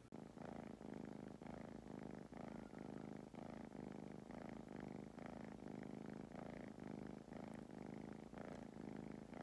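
Gray tabby kitten purring in a steady, rhythmic buzz while it dozes.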